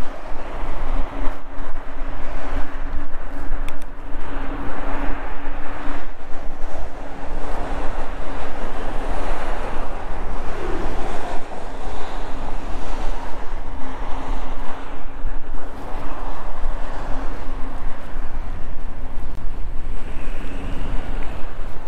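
Wind buffeting the action-camera microphone on a moving electric mountain bike, with tyre and ride noise surging unevenly and a thin, steady hum underneath.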